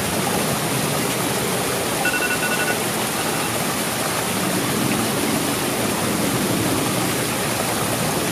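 Small landscaped rock waterfall, water splashing steadily over stones.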